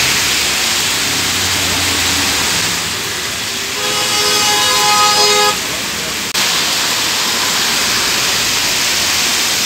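Heavy rain pouring onto a street, with vehicles passing through the water. About four seconds in, a vehicle horn is held for under two seconds.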